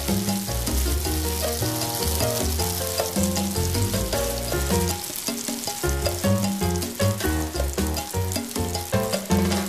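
Slabs of tofu frying in hot cooking oil, a steady crackling sizzle, under background music with a plain bass line.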